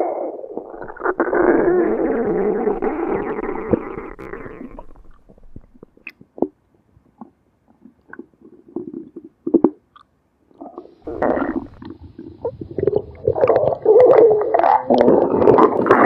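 Stomach growling and gurgling: a long rumble over the first few seconds, then scattered short gurgles and pops, then a louder stretch of bubbling growls from about eleven seconds in.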